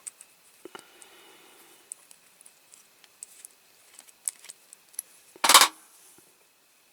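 Small clicks and light taps of diecast toy parts and small hand tools being handled on a workbench, with one brief loud clatter about five and a half seconds in.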